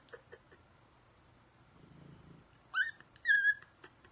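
A sleeping dog snoring softly, then two short, high, squeaky whines near the end, the first rising in pitch, as the dog wakes.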